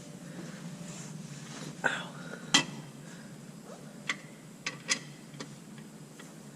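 Metal hand tools clinking as a socket and torque wrench are handled: about five sharp clicks and clinks spread over a few seconds, over a low steady hum.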